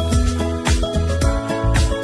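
Background music with a steady beat, bass and drums under sustained instrument notes.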